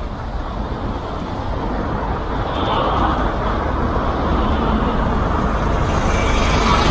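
City street traffic: engine and tyre noise of cars and trucks passing close by, growing steadily louder as a box truck goes past.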